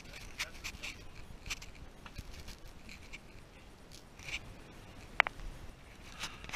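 Clothing, hands and shoes scraping and brushing against sandstone walls as people squeeze and climb through a tight slot canyon, in a run of short scratchy rustles. A single short, high ping sounds about five seconds in.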